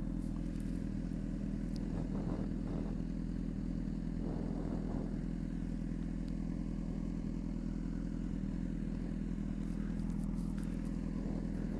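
Honda CBR600RR's inline-four engine idling steadily while running hot.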